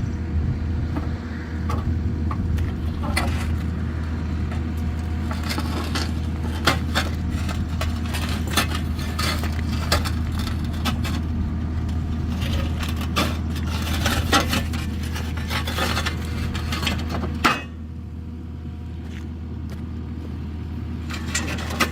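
A vehicle engine runs steadily under a string of metal clanks, knocks and scrapes. About three-quarters of the way through, the engine sound suddenly drops quieter.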